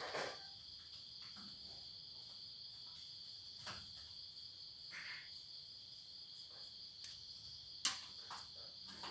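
Night insects chirring steadily in two high bands, with a few faint clicks and rustles; a sharper click comes near the end.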